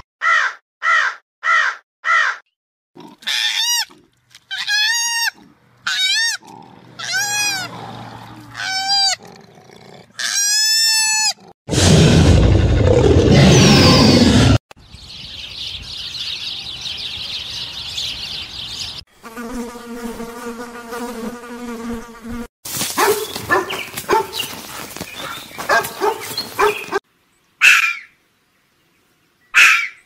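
A run of different animal calls, one after another with abrupt cuts between them. First come short repeated calls, then arching calls that rise and fall. About twelve seconds in, a loud harsh roar-like noise lasts about three seconds, followed by an insect-like buzz, a low steady call, a harsh crackling stretch and a few brief calls near the end.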